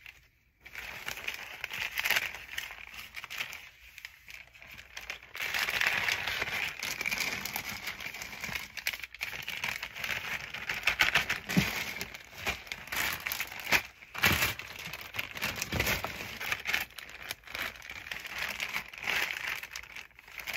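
Plastic bags and packets of medical supplies crinkling and rustling as they are handled and packed, with a few dull knocks in the second half.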